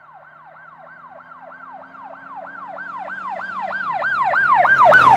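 Emergency vehicle siren in a fast yelp, each cycle a quick falling sweep, about three a second, over a low engine hum. It grows steadily louder as the vehicle approaches and is loudest near the end.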